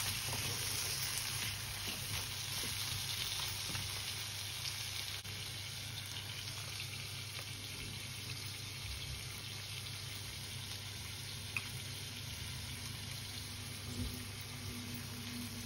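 Crab masala sizzling steadily in the pan over a low hum, with one sharp click about three quarters of the way through.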